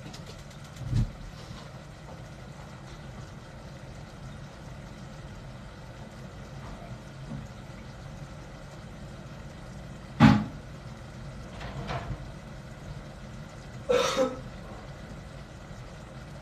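Kitchen work sounds over a steady low hum: a few sharp knocks, the loudest about ten seconds in, and a short double burst near the end.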